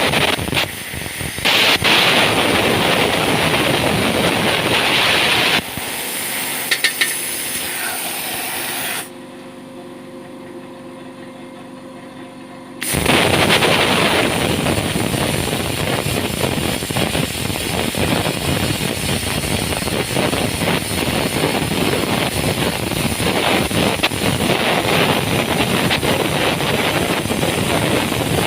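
Angle grinder with a cutting disc cutting into steel plate: a loud, harsh grinding hiss. Partway through it drops for a few seconds to a quieter, steady hum, then the cutting noise comes back and carries on.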